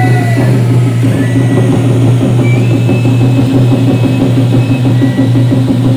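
Hand-held tezutsu bamboo-tube firework spewing its fountain of flame and sparks with a loud, steady roar.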